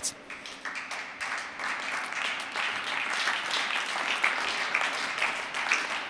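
Applause with many separate claps, building over the first second or two, then holding steady.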